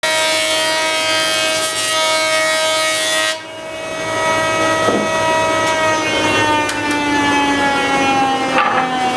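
Brother jointer's cutterhead whining steadily as a walnut board is fed across it. There is a hiss of cutting over roughly the first third that stops abruptly, after which the whine runs on, slowly falling in pitch near the end, with a couple of light knocks of the board.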